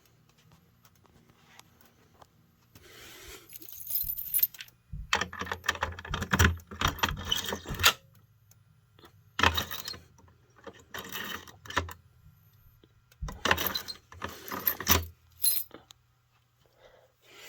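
Jangling, rustling handling noise in four bursts, each one to three seconds long with short pauses between, starting about three seconds in.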